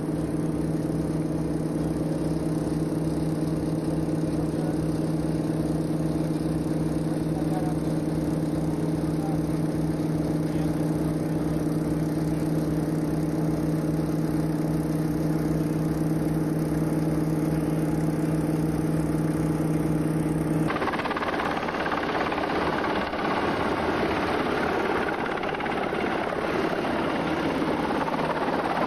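A boat's engine running steadily with a fast, even low throb. About two-thirds of the way through it cuts abruptly to a rougher, noisier rush.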